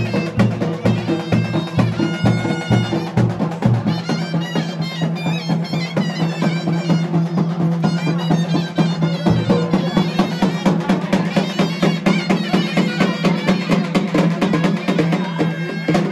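Traditional festival music: a reedy wind instrument plays a wavering, ornamented melody over a steady drone, with fast, dense drumming throughout.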